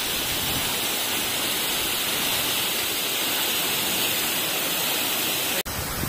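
Steady rushing of a tall waterfall, with water falling onto rock. A sudden brief dropout near the end, after which the rush comes back fuller and lower.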